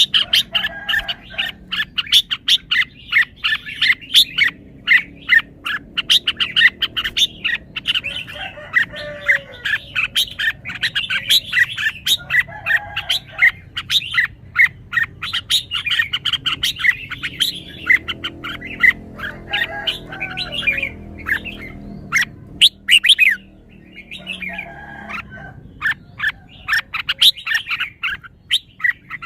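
Red-whiskered bulbul singing: a dense run of quick, sharp chirps, broken every few seconds by short lower whistled phrases.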